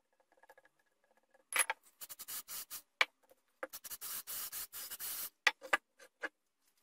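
Aerosol spray can hissing in several short bursts, then one longer spray of nearly two seconds. There are a few sharp clicks and knocks as the can and the wooden plate are handled.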